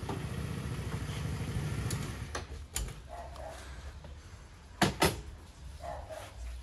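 Motor scooter engine idling, then cut off about two seconds in. A click follows, and about five seconds in two sharp knocks in quick succession as the scooter's seat lid is slammed shut.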